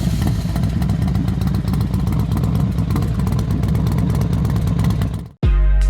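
Motorcycle engine idling steadily with a lumpy, pulsing low beat, just after being started; it cuts off suddenly about five seconds in, and music with a heavy bass beat starts near the end.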